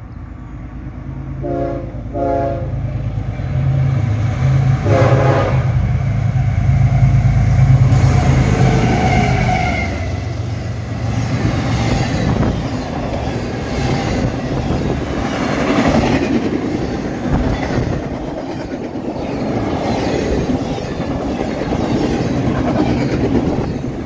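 Nathan K5HL five-chime horn on an approaching CSX freight locomotive sounding two short blasts about a second apart, then another a few seconds later, over the growing rumble of the lead diesel locomotives. From about ten seconds in, the intermodal well cars rush past at speed with wheel clatter.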